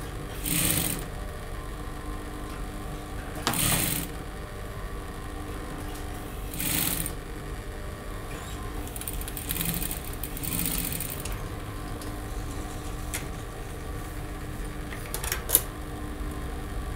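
Juki industrial sewing machine stitching a ridgeline bone into a bustier seam in short, gentle runs of a second or so, four or five times over a steady motor hum. A few sharp clicks come near the end.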